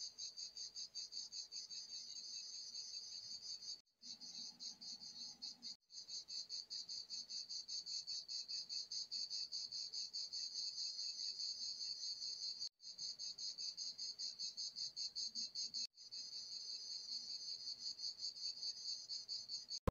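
Insect chirping outdoors in a high-pitched, rapid, even pulse, with a few brief breaks where it drops out completely.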